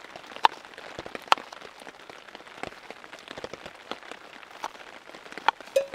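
Steady rain pattering, with scattered sharp ticks and taps, among them a knife cutting green bell pepper against a wooden plate; the loudest ticks come about half a second and a second and a half in, and twice near the end.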